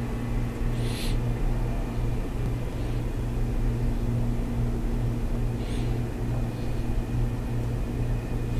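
Steady low hum with two short, faint breaths about a second in and near six seconds.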